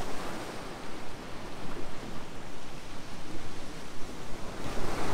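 Ocean surf washing against a rocky shore, a steady rushing noise, with some wind on the microphone.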